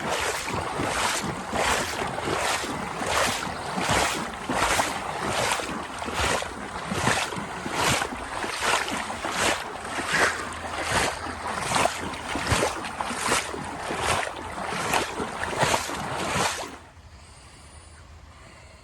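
Legs wading through knee-deep floodwater, each stride a sloshing swish, about one and a half strides a second; the wading stops near the end.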